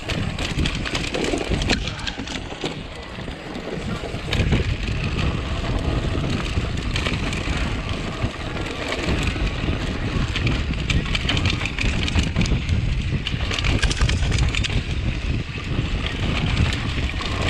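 Mountain bike riding down rocky dirt singletrack: wind buffeting the camera microphone as a steady low rumble, tyres rolling over dirt and rock, and frequent rattles and knocks from the bike over the rough ground.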